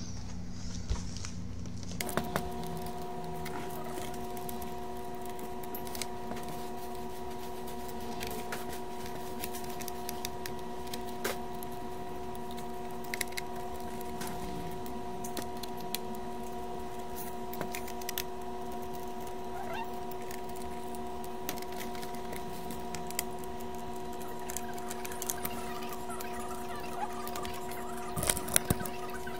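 Scattered clicks and small taps of screws and a screwdriver being worked on the plastic underside of a QSC TouchMix-16 mixer, with a cluster of louder clicks near the end. A steady electrical hum of several held tones begins about two seconds in and runs beneath it.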